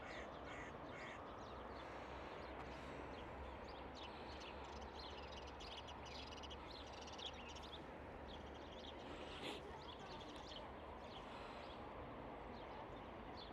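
Faint outdoor ambience: birds chirping now and then over a low, steady rumble.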